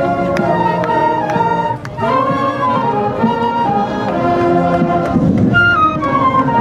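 Marching band playing, flutes carrying the tune over drum strikes about twice a second. The music dips briefly about two seconds in, and a falling flute line comes near the end.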